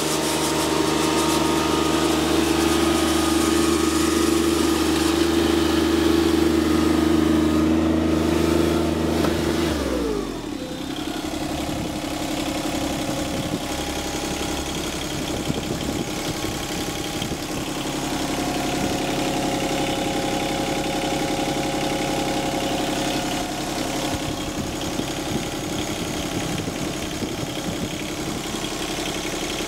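Yanmar 3TNV70 three-cylinder diesel in a 2008 John Deere 2653B mower running steadily at high speed. About ten seconds in it is throttled down, its pitch sliding down, and it then idles steadily.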